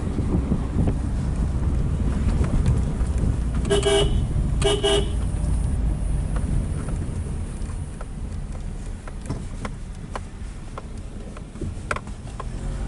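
Low road and engine rumble heard from inside a moving car's cabin, with two short car-horn toots in quick succession about four seconds in. The rumble eases off in the second half.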